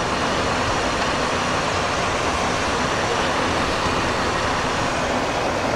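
Steady, even cockpit noise of a Cessna Citation XLS business jet in flight: the rush of air and engine sound heard inside the flight deck.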